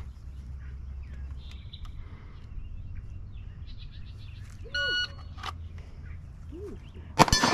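Shot timer sounding one short electronic start beep about five seconds in, then a sharp gunshot near the end with ringing tones hanging on after it: the start of a timed match stage. A steady low rumble runs underneath.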